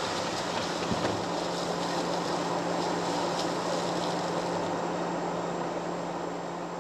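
Jeep driving: a steady engine drone under road and wind noise, fading out near the end.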